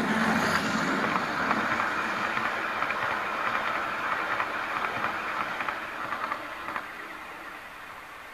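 OO gauge model train, a diesel locomotive hauling coaches, running past close by: a fast clicking rattle of wheels on the track, loudest as it passes and fading away after about seven seconds.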